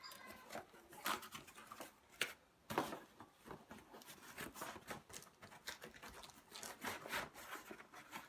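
Delivery parcel packaging being handled and worked open by hand: irregular rustling, scratching and small clicks.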